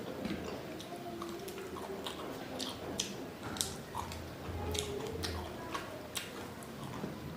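A person chewing food, with irregular sharp clicks and mouth sounds scattered throughout.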